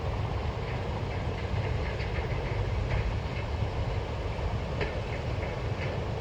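Freight wagons rolling slowly past, with scattered light clicks of wheels over the rail joints over a steady low rumble.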